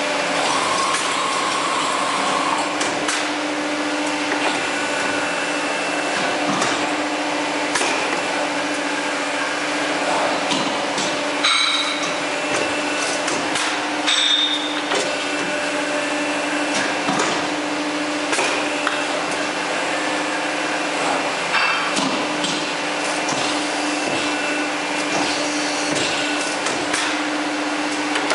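CNC 38 pipe bending machine running: a steady hum from its drive, with irregular clicks and clunks as it works. Around the middle there are a couple of brief higher-pitched squeaks.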